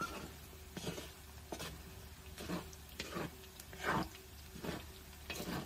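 Wooden spatula stirring and scraping pork intestines as they crisp in a large aluminium wok, in repeated strokes a little more than one a second, over a faint steady hum.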